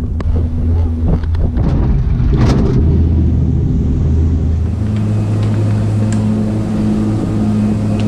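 Skyrail cableway gondola and its machinery: a steady low mechanical hum, with a run of clunks and rattles in the first few seconds. About five seconds in the hum changes pitch to a steadier drone.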